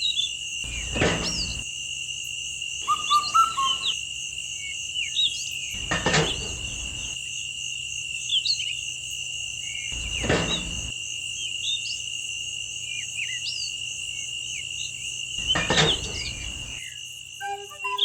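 Crickets chirring steadily with scattered bird chirps over a faint low hum. About once every four to five seconds a brief rushing noise breaks in, four times in all.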